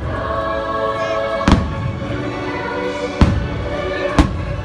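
Aerial firework shells bursting with three sharp booms, about a second and a half in, just past three seconds and just past four seconds, over the fireworks show's music playing steadily from loudspeakers.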